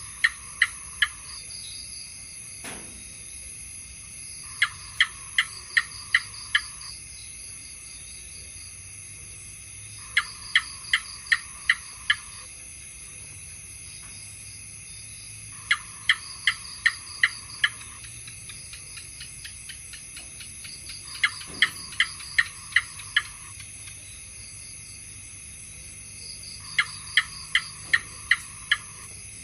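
House gecko calling: bouts of six or seven quick, sharp chirps about every five and a half seconds, over a steady high-pitched hiss.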